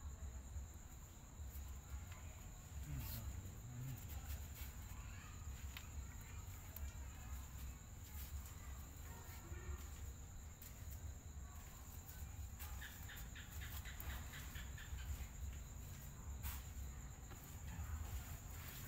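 Steady high-pitched insect drone over a low background rumble, with scattered faint clicks and a brief run of rapid ticks about two-thirds of the way through.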